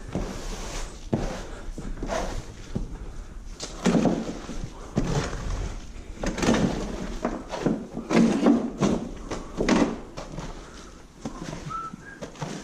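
A scraper blade pushed across a shed floor, scraping up loose dirt and debris in repeated rough strokes, roughly one a second.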